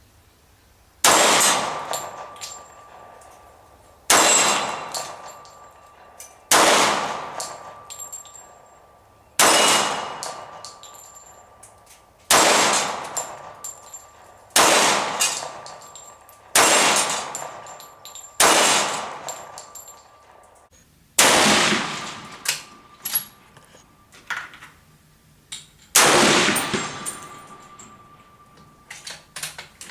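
Rifle shots, about ten of them, fired every two to three seconds. Each sharp report trails off in a long echo across the range.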